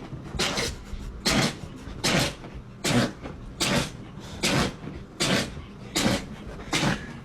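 A dog sneezing over and over in a fit: about nine short, sharp sneezes, evenly spaced less than a second apart.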